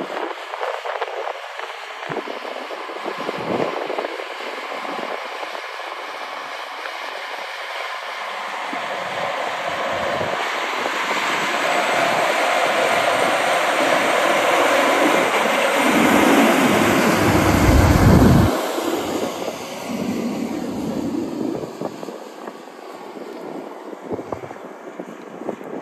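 John Deere 9510RT track tractor running under load as it pulls a Lemken Karat 9 chisel plow through the soil, coming closer and passing by. The sound swells to its loudest about two-thirds of the way through, with a deep rumble, then falls away.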